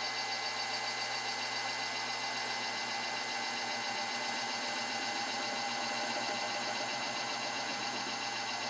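Milling machine running steadily as a 1/8-inch reamer is fed into the bore of a brass cylinder: an even mechanical hum with several fixed tones.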